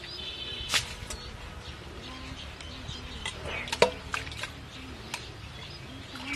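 Metal bowls scooping and sloshing muddy water in a shallow ditch, with several sharp knocks of the bowls. The loudest knock comes about four seconds in.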